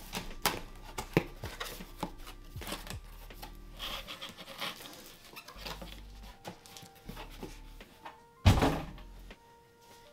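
Cardboard shipping box being opened and handled: scattered knocks, scrapes and rustles, with one loud thump near the end, over quiet background music.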